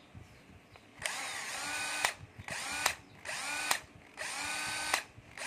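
Makita cordless impact wrench motor run in five short bursts, each spinning up when the trigger is squeezed and ending with a click on release; the first is about a second long, the rest shorter. Its electric brake is failing, which the seller judges because it only brakes when the trigger is released quickly.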